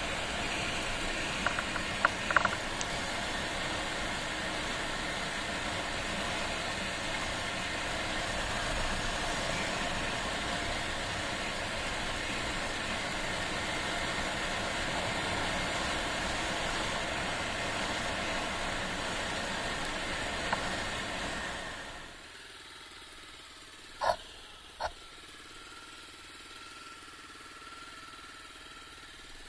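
Honda XR250 single-cylinder motorcycle running while riding, its engine buried in dense wind and road noise, with a few knocks about two seconds in. About 22 seconds in the noise drops sharply to a much quieter engine sound with a faint steady whine, and two short clicks follow.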